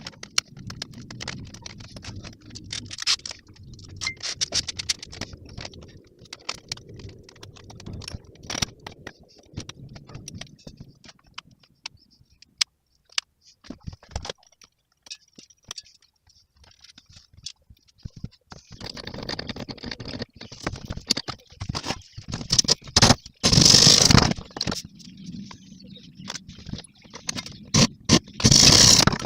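Scraping, clicking and rattling of hand repair work on a bird feeder, with louder rasping strokes about two-thirds of the way in and again near the end.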